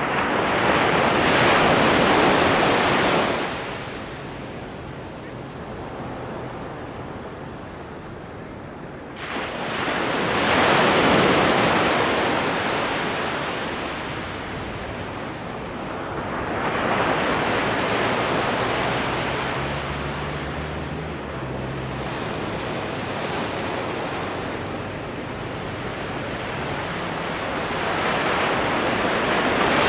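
Ocean waves breaking on a sandy beach: the surf swells and fades in four slow surges about eight seconds apart.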